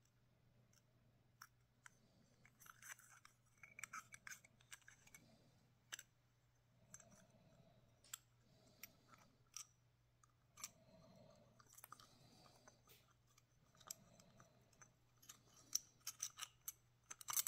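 Faint clicks, scrapes and rustles of a flashlight's small plastic and aluminium parts being handled and fitted together by hand, with a quick flurry of sharper clicks near the end. A faint steady hum runs underneath.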